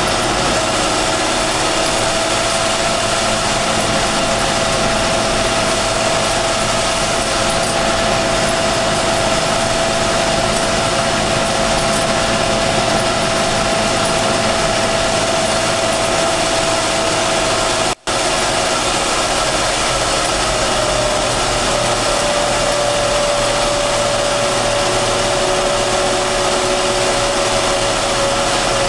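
John Deere 6930 tractor's six-cylinder diesel engine running hard under heavy load, hauling a 20-tonne load up a steep hill. Its steady whine slowly drops in pitch as the climb drags the revs down, and the sound cuts out for an instant about 18 seconds in.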